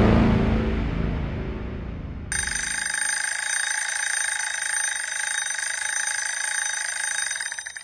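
Background music fades out over the first two seconds. Then a Lux Minute Minder mechanical kitchen timer's bell starts suddenly and rings continuously, a rapid rattling ring, as the timer runs down to zero.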